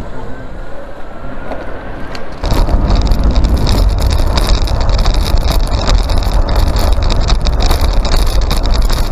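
Moonster Evo 3 electric motorbike under way, a faint rising motor whine as it pulls away. About two and a half seconds in, loud wind buffeting on the microphone takes over.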